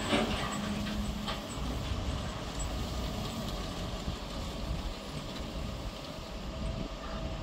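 Wheel loaders' diesel engines running steadily as they handle a track panel, with a few sharp metal clanks near the start and about a second in.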